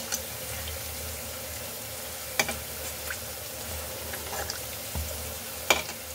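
Besan-battered potato bondas sizzling as they deep-fry in hot oil in a metal kadhai, a steady hiss, while a metal spoon stirs and turns them, knocking against the pan twice.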